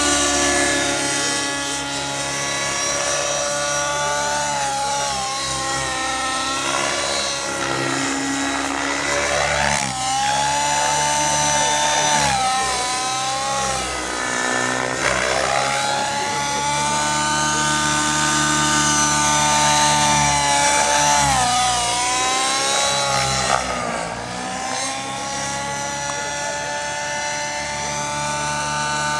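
Align T-Rex 700N nitro RC helicopter in flight: its two-stroke glow engine and rotor whine rise and fall in pitch again and again as it swoops, climbs and dives through manoeuvres.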